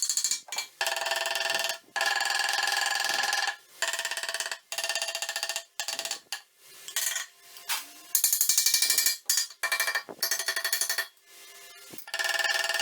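A machine or power tool run in about nine short bursts, each starting and stopping abruptly, with a steady hum under a harsh high-pitched noise.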